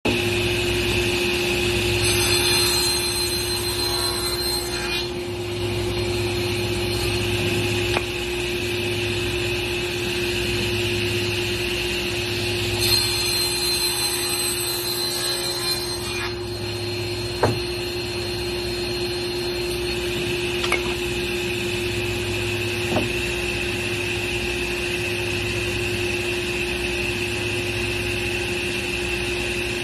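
Table saw running steadily with a constant whine, ripping through a thick wooden beam twice, about two seconds in and again around thirteen seconds, each cut lasting about three seconds. A few sharp knocks come from the wood being handled between cuts.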